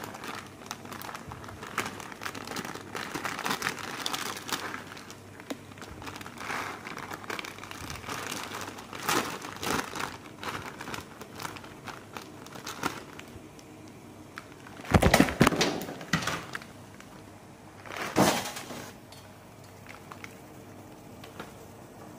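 Plastic Neoguri instant-noodle packet crinkling and rustling as it is handled and opened, with two louder crackling rustles about 15 and 18 seconds in.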